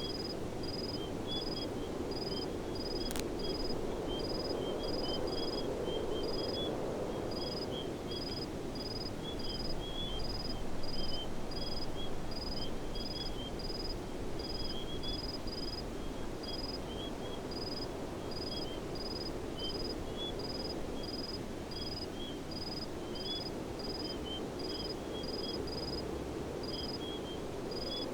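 Outdoor nature ambience: insects chirping, one in short high pulses about twice a second over a fainter, irregular twittering, with a steady rushing or rustling noise underneath. A single sharp click about three seconds in.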